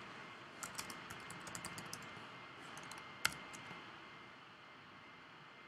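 Faint typing on a computer keyboard: a run of quick keystrokes lasting about three seconds, with one sharper click a little past halfway, then only low hiss.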